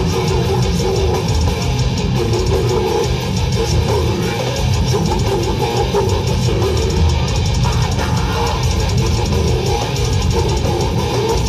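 Death metal band playing live: heavily distorted electric guitars and a drum kit playing loud and dense without a break, heard from the crowd.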